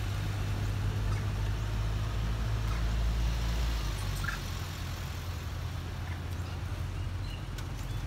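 Low, steady rumble of an engine running, heavier in the first half and easing off about halfway, with a few faint short high chirps around the middle.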